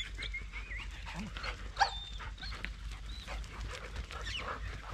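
Hunting dogs whining and yelping in excitement: a string of short, high, wavering cries, with one louder yelp about two seconds in.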